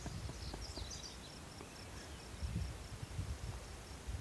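Outdoor ambience: low wind rumble on the microphone, with a run of short, high, evenly spaced chirps, about five a second, from a small creature.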